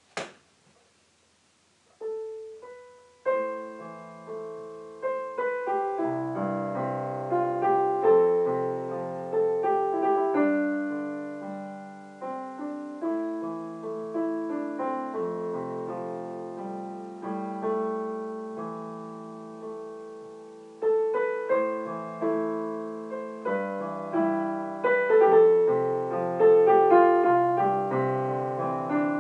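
A short click, then after about two seconds of quiet a slow solo piano piece begins. It opens with a few single notes, then moves into sustained chords over a low bass line.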